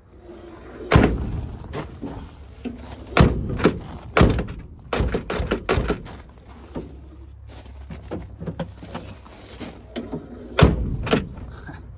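Steel doors of a 1957 Plymouth Sport Suburban station wagon being swung and pushed shut several times: four loud thunks, about a second in, near three and four seconds, and near the end, with lighter clicks and knocks from the chrome push-button handle and latch in between. A door no longer shuts as it did.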